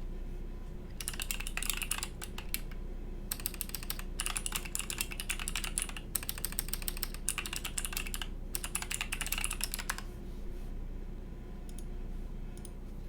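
Typing on a mechanical keyboard: quick runs of keystrokes in several bursts with short pauses, stopping about three seconds before the end, with a few stray clicks after.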